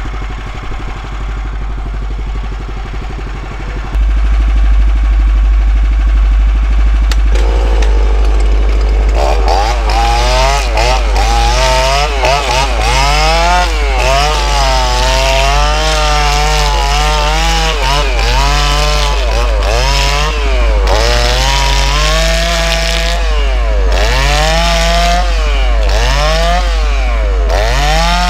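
A band sawmill's gas engine idles steadily. From about a third of the way in, a chainsaw cuts into the log on the mill bed, its revs rising and falling over and over as it bites into the wood and frees up.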